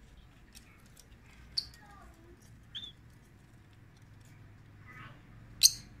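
Rosy-faced lovebirds giving a few short, sharp, high chirps, one at about a second and a half and another near three seconds, with soft chattering between; the loudest, shrillest chirp comes just before the end.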